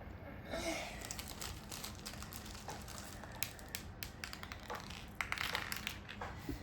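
Small craft pieces and their plastic packaging being handled: many short clicks and rustles, with a dense flurry of clicking a little after five seconds in.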